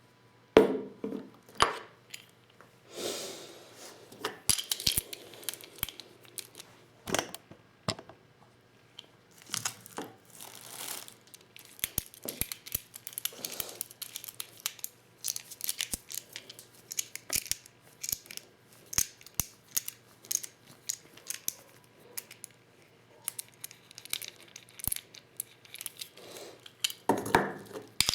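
Hand-reloading 12-gauge shotgun shells with a Lee Loader kit: irregular small clicks and clinks of shells and tools being handled, with a few longer rustling, scraping stretches.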